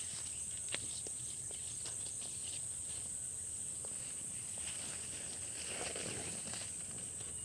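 Steady high-pitched insect chirring, with a few faint clicks and a soft rustle about six seconds in.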